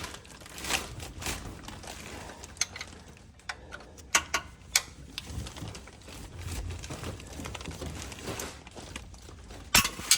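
Small hand wrench clicking and knocking against a seized oil drain plug on a 2015 Infiniti QX60 as it is strained at; the plug is stuck tight and won't break loose. Irregular clicks throughout, with a few sharper knocks about four seconds in and near the end.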